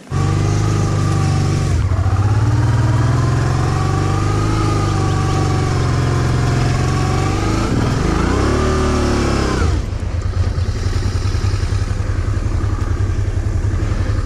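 Honda Transalp 650 V-twin motorcycle engine running under way, starting abruptly. Its revs rise and fall briefly about eight seconds in, then settle back to a steady note.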